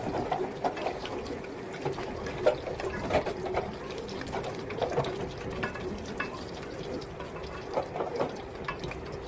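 Battered chicken frying in hot oil, with irregular crackles and pops over a steady hum.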